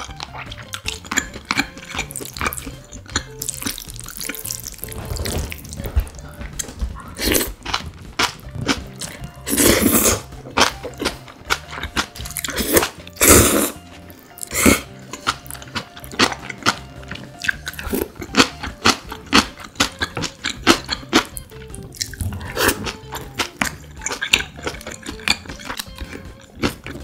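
Close-miked eating sounds: wet chewing and mouth clicks from spicy cold noodles with young-radish kimchi, with two louder slurps about ten and thirteen seconds in.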